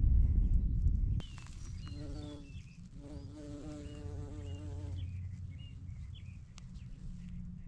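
A bee buzzing as it flies among small flowers, its hum wavering in pitch, heard in two stretches about two and three seconds in. Small birds chirp in the background, and wind rumbles on the microphone in the first second.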